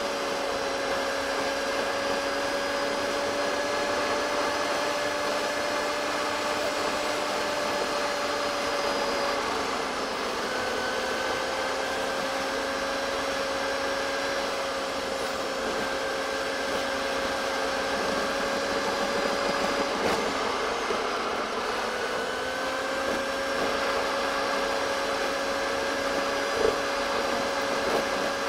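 A car's gearbox buzz, from a gearbox in poor condition, recorded while driving and played back at four times speed so that it comes out as a high, steady whine like a supercar's. The pitch breaks and shifts a few times.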